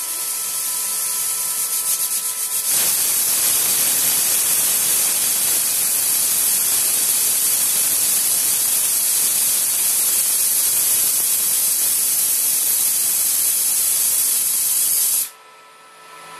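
Pressure cooker whistle blowing off steam in a loud hiss, fluttering quickly for the first couple of seconds, then a steady hiss that cuts off suddenly near the end. Each whistle marks the cooker reaching full pressure while the dal cooks inside.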